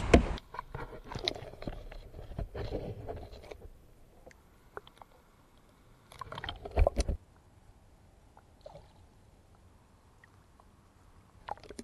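Water sloshing and gurgling around a camera dipped at and under the surface beside a kayak, with small irregular knocks and splashes; the loudest splashing comes about six to seven seconds in.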